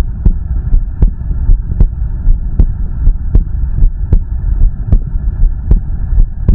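Human heartbeat: even thumps about three-quarters of a second apart, roughly 80 beats a minute, over a steady low rumble.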